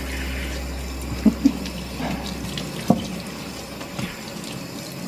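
Kitchen faucet's pull-down sprayer running water over a puppy's fur in a stainless steel sink, a steady splashing hiss, with a few short knocks.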